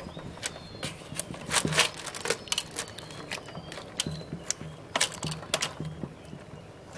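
Freshwater clams in their shells and leafy greens being stirred with a wooden spoon in a metal pot, the shells clicking and clacking irregularly against each other, the spoon and the pot.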